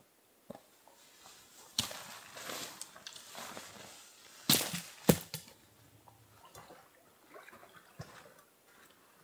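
A nylon tent being taken down: fabric rustling with a few sharp clacks of the poles, the two loudest about four and a half and five seconds in.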